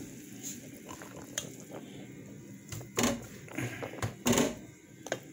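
A serving spoon scraping and knocking against a pot of cooked rice. There are a few separate short scrapes, the two loudest about three and four seconds in.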